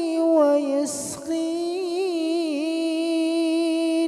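A man's voice chanting Quran recitation in long, melodic held notes with wavering ornaments, with a short break about a second in.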